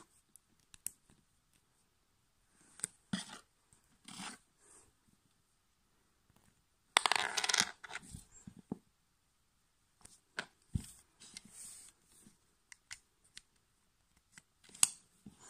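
Lego Technic plastic parts clicking, rattling and scraping as they are handled and fitted together: an axle and bushing pushed into a frame. The clicks come irregularly, with the longest and loudest rattle about seven seconds in.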